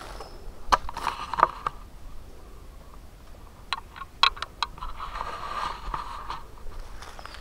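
Footsteps crunching through dry leaf litter: irregular sharp crackles and snaps in two clusters, with rustling scrapes in between.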